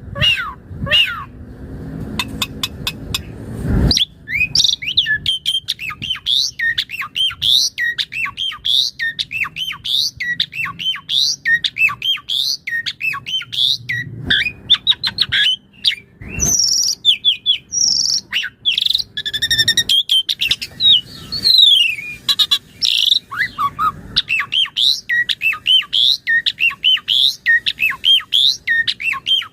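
Asian pied starling (jalak suren) singing in full voice: a fast, unbroken stream of varied chirps, whistles and harsh squawks that turns dense about four seconds in. The song is its 'isian' repertoire of mimicked calls.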